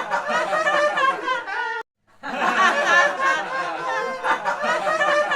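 High-pitched laughing and chattering voices in a looped clip that repeats about every four seconds, cutting to silence for a moment about two seconds in before starting over.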